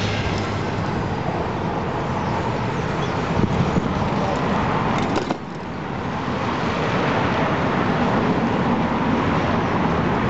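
Steady city road-traffic noise, with a short click or knock about halfway through and a brief dip in level just after.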